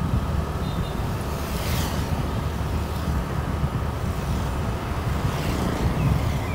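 Steady low rumble of a vehicle travelling along a town road, with road noise and a brief hiss about two seconds in.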